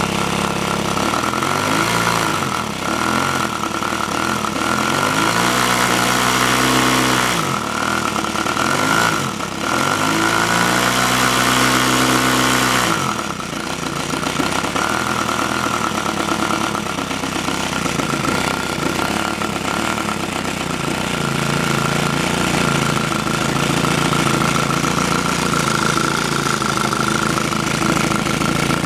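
Home-built 65 cc three-cylinder five-stroke model engine running, its central cylinder re-expanding the exhaust of the two outer ones. The engine speed rises and falls several times over the first half, then holds steady.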